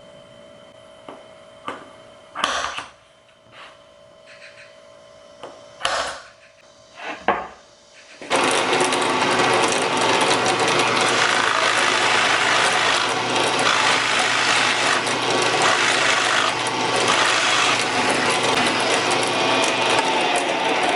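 A few short knocks and rubs of wood being handled, then, about eight seconds in, a power planer starts up and runs loud and steady.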